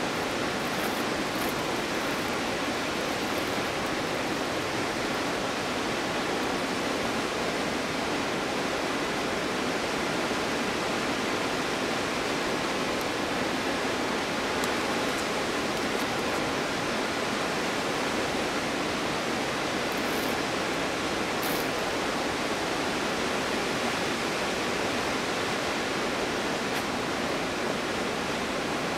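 Winter waterfall, water falling in a steady, even rush.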